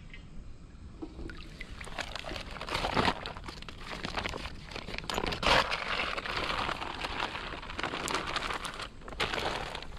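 A plastic carrier bag crinkling and rustling as it is handled to take in a freshwater crab, with many small crackles and a few louder crinkles.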